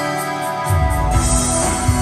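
Live rock band playing a song's instrumental intro, guitars and keyboard ringing over the hall's sound system. Less than a second in, a heavy low bass beat and bright cymbal-like hiss come in and the music fills out.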